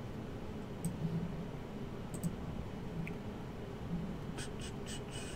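A few scattered faint clicks over quiet room noise, with a small cluster about four and a half seconds in: a computer mouse being clicked while a web randomizer is set up.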